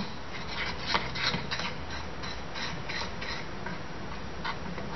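Metal teaspoon stirring thick hard-crack sugar syrup with coffee in a metal saucepan, scraping and clicking against the pan's sides and bottom in quick, irregular strokes.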